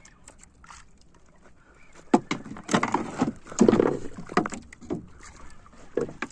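A run of irregular knocks and bumps on a small fishing boat, starting about two seconds in and loudest around the middle.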